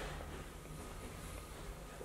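Quiet workshop room tone: a steady low hum and a faint thin whine, with no distinct handling sound.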